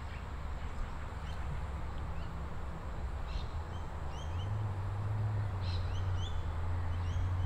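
Small birds chirping in short, high calls several times, over a steady low rumble that grows louder about four seconds in.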